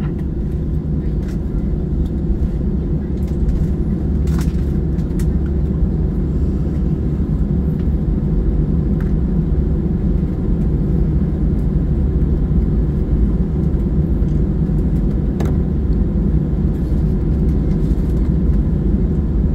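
Steady low rumble in the cabin of an Airbus A319 taxiing after landing, its CFM56 engines running at taxi power along with the rumble of the rolling gear. Two short sharp clicks stand out, one about four seconds in and one later on.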